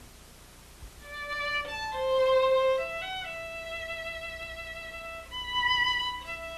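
Instrumental music: a slow melody of a few long held notes, beginning about a second in.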